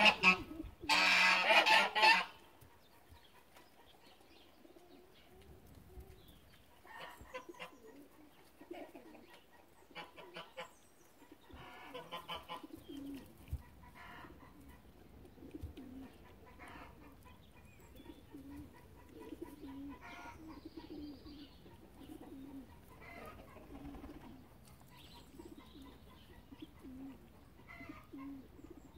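Farmyard birds calling: a loud call in the first two seconds, then a quieter stretch of scattered short chirps, then soft low notes repeated about once a second.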